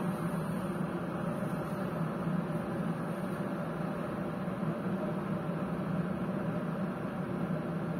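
KitchenAid Design 1.5-litre electric kettle heating a litre of water: a steady rushing hiss from the heating water, not yet at the boil.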